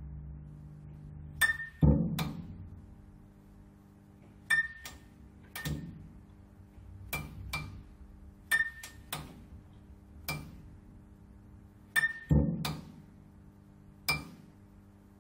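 Neon tube flickering: irregular sharp electrical clicks and pops, some with a brief ringing ping, in uneven clusters over a steady low electrical hum.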